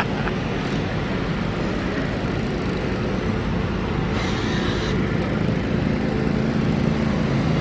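Several riding lawn mower and garden tractor engines running steadily as a line of them drives past close by.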